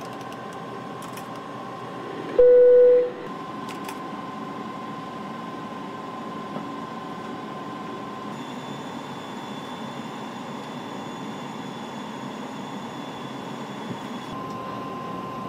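Steady cockpit background noise of an airliner on approach, with a low hum and a faint steady tone under it. About two and a half seconds in, one loud electronic beep sounds for under a second, the loudest thing heard, and a faint high whine joins the noise for the middle stretch.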